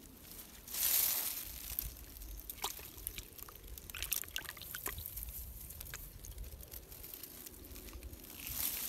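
Water splashing in a plastic bucket holding caught fish, loudest about a second in, then scattered small clicks and rustles of handling, with a second swell of splashing near the end.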